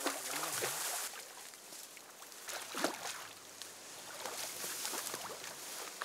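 A hooked sea trout thrashing at the water's surface, splashing in repeated bursts, with the loudest splash about three seconds in.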